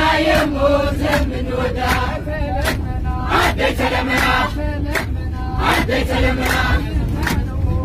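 A busload of people singing an Eritrean Orthodox Tewahdo praise hymn (mezmur) together, kept in time by steady hand claps a little under two a second, over the low rumble of the bus.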